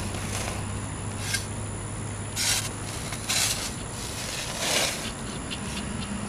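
Shovel blade scraping across packed soil in several separate strokes about a second apart, over a low steady hum.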